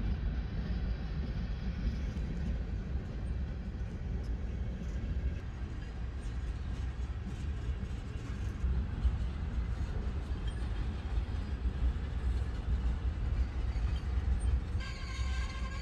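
Steady low rumble of a passing train, with a few faint clicks. Music comes in near the end.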